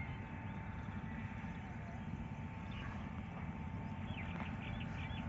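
Open-air field ambience: a steady low rumble with a faint steady hum, and a quick run of bird chirps about four seconds in.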